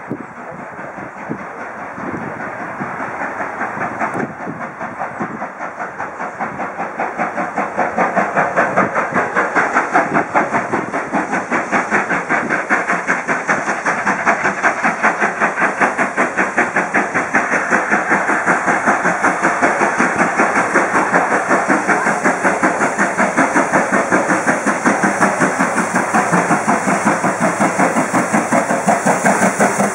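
GWR 4200-class 2-8-0 heavy freight tank engine 4247 approaching under steam, its exhaust chuffing in a fast, even rhythm of beats. The beats grow louder over the first several seconds as it nears, then stay loud and steady.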